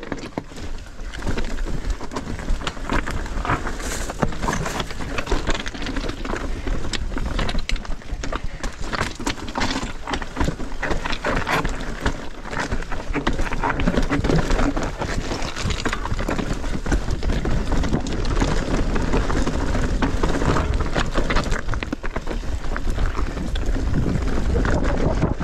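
Bicycle ridden fast down a dirt trail: tyres crunching and the bike rattling over the ground in a dense stream of small knocks, with wind buffeting the microphone.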